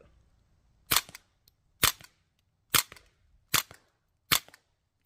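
Ruger 10/22 semi-automatic .22 rifle with a Banish 22 suppressor firing Federal American Eagle 45-grain suppressor loads: five suppressed shots about a second apart, a sixth right at the end. Each sharp report is followed a fraction of a second later by a fainter second sound.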